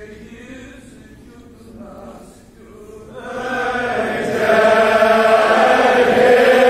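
Men's voices chanting a Kashmiri marsiya (Shia elegy) together in unison. The chant starts about three seconds in and swells to full loudness a second or so later; before that only faint voices are heard.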